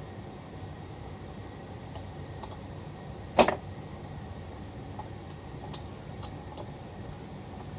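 Tools and small chainsaw parts being handled during reassembly: one sharp clack about three and a half seconds in, then a few faint clicks, over a steady low hiss.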